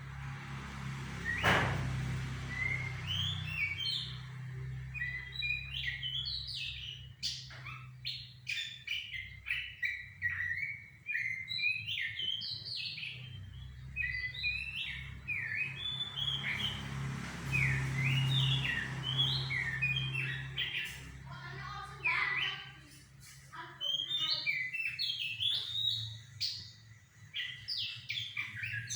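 Goci bird calling: quick runs of short, varied chirps, nearly continuous, over a steady low hum, with one sharp knock about a second and a half in.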